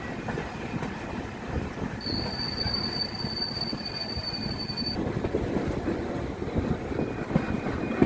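Pothigai Express LHB passenger coaches running over the track, a steady rumble and rattle of wheels on rail heard from an open coach door. From about two seconds in to five seconds in, a steady high-pitched wheel squeal rings out as the train takes a curve.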